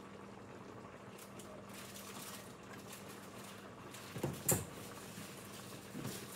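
Pot of candied yams in butter and sugar cooking quietly on a stovetop, a faint steady bubbling over a low hum. A short clatter from the pot comes a little after four seconds in, and a smaller one near the end.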